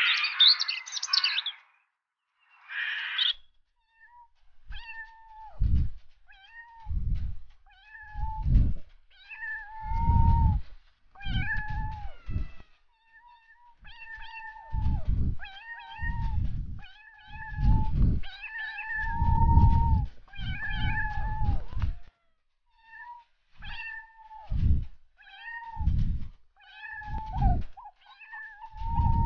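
Cat meowing over and over, about twenty meows roughly a second apart, some short and some drawn out, with a couple of brief pauses. Two short hissy bursts of a different sound come first.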